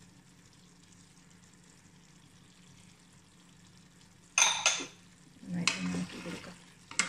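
Spoon stirring and scraping chicken and chopped coriander in a nonstick pan. Two loud, sharp scrapes come about four and a half seconds in, followed by more stirring, over a faint, steady frying sizzle.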